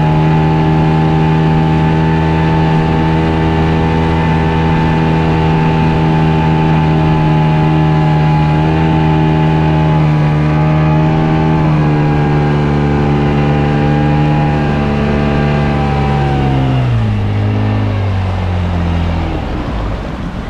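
Suzuki outboard motor running steadily at speed while towing an inflatable ride. Its pitch steps down slightly about twelve seconds in, then falls away near the end as it throttles back.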